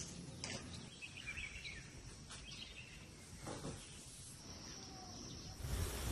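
Faint outdoor background noise with a few short scattered bird chirps. Near the end, a louder low rumbling noise comes in.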